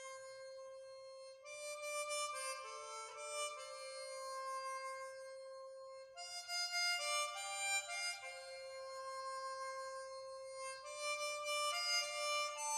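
Background music: a slow melody of long held notes, several sounding together, changing every second or two.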